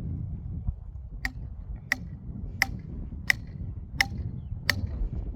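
A very even series of sharp ticks, about three every two seconds, starting about a second in, over a steady low rumble.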